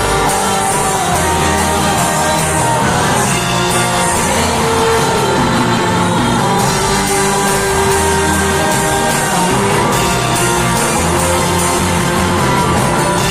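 Live worship band playing loud, steady music, with electric guitar and bass.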